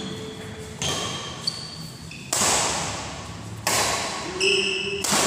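Badminton doubles rally in an echoing hall: four sharp racket strikes on the shuttlecock, about one every second and a half, with short high squeaks of shoes on the court floor between them.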